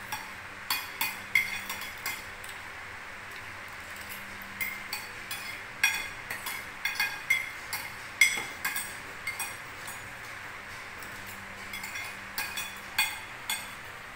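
Metal spoon and fork clinking and scraping against a ceramic plate while eating, in irregular clusters of sharp clinks with short pauses between them.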